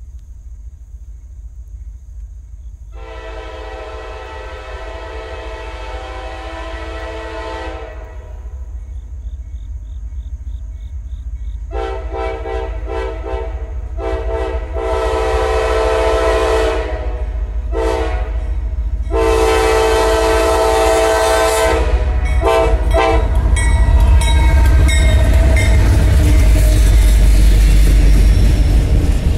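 Diesel locomotive air horn on a Norfolk Southern AC44C6M sounding the grade-crossing signal, long, long, short, long, as the train approaches a crossing. The locomotives then pass with a heavy rumble, followed by double-stack intermodal cars clattering over the rails, growing louder toward the end.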